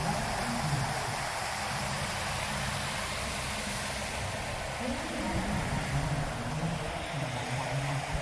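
Fountain jets spraying and water splashing down, a steady rushing hiss, with people's voices faintly underneath.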